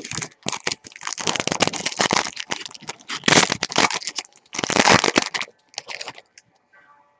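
Crinkling and crackling of a trading-card pack wrapper being torn open and handled, in a run of loud bursts that stops about six seconds in.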